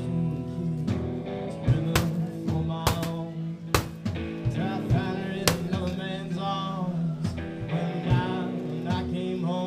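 Live band music: guitar and drum kit playing, with sharp drum hits and a bending melody line over sustained notes.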